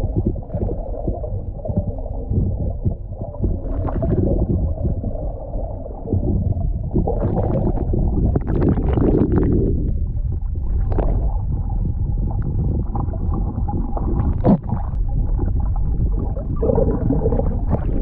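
Muffled underwater sound from an action camera held below the sea surface: a low rumble of moving water with gurgles, and a few short bursts of bubbling and splashing, the longest about eight seconds in.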